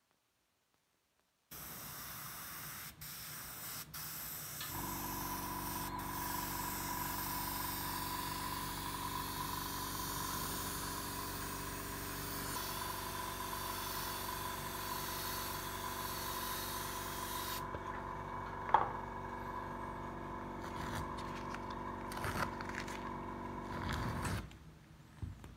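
An airbrush sprays paint in a steady hiss. A few seconds in, an air compressor starts up underneath with a steady hum. The hiss stops about two-thirds of the way through, the compressor hum carries on, and a few knocks and handling clicks follow, one of them sharp.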